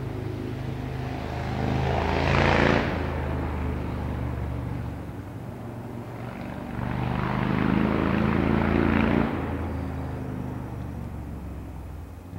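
An engine running steadily with a low drone. A rushing noise swells louder twice, about two seconds in and again around seven to nine seconds.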